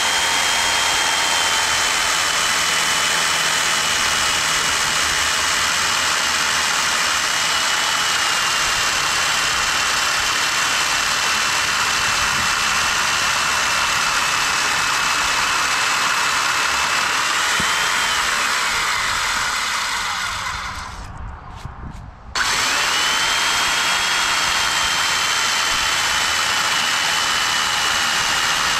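Corded Porter-Cable circular saw driving a Hercules beam-cutter chain attachment, its chain cutting through a thick timber beam, with a steady high motor whine. About twenty seconds in the whine rises briefly, then the motor winds down and stops. A second and a half later it starts again and keeps cutting.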